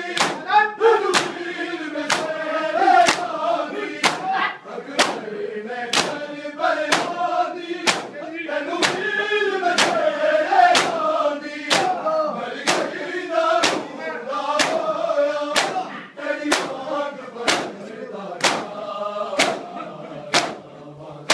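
Crowd of men chanting a noha in unison while beating their bare chests with open hands (matam), the strikes landing together in a steady beat about every two-thirds of a second.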